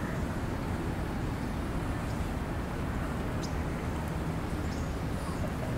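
Steady outdoor background noise with a low rumble like distant traffic, and a few faint short high chirps or ticks scattered through it.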